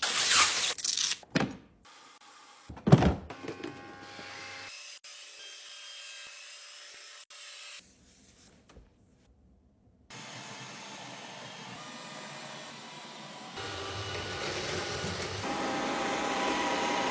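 Robot vacuum cleaner running with a steady whirring hum and a few faint steady tones, in several separately cut stretches that are louder near the end. A few loud sudden knocks and scrapes come in the first three seconds, and there is a short near-silent gap about halfway through.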